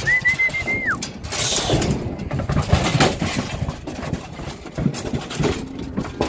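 Irregular clanks, knocks and rattles of a steel pipe cattle chute as cattle are worked through it. A short high whistle in the first second holds steady, then drops in pitch.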